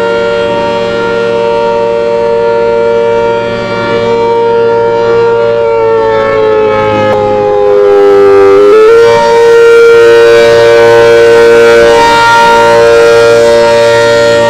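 ACA Hurricane outdoor warning siren sounding the attack signal, a loud, multi-note wail. Its pitch holds, sags slowly about six seconds in, then climbs back up just before nine seconds.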